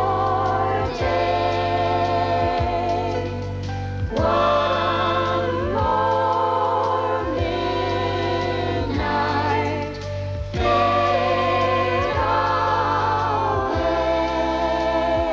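Music with singing voices: long held sung notes with vibrato over a steady bass accompaniment, with brief breaks between phrases.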